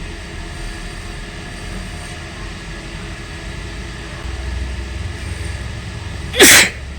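A woman sneezes once, short and loud, about six and a half seconds in. Under it runs a steady low background rumble that grows a little louder about four seconds in.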